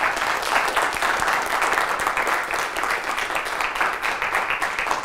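Audience applauding: steady, dense clapping from many people.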